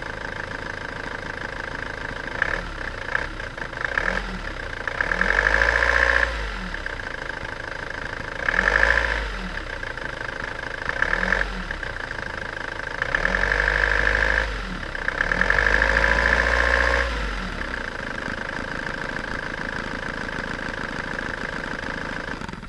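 An engine idling steadily, revved up in about seven short bursts, and cut off at the end.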